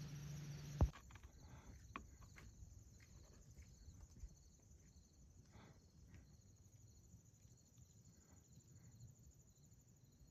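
Faint, steady trilling of insects, likely crickets, over quiet open-air ambience. A low engine hum at the very start cuts off with a sharp click about a second in.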